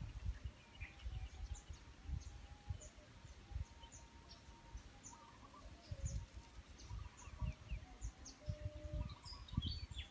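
Small birds chirping: a steady string of short, high, falling chirps, over irregular low thumps.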